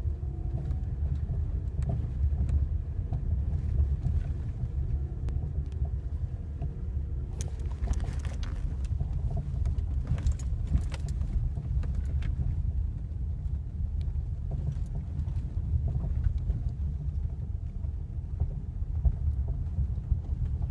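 Ford Mondeo Mk4 driving over uneven road: a steady low road rumble, with a run of sharp knocks in the middle. The knocking comes from the suspension on bumps, the fault the owner is showing.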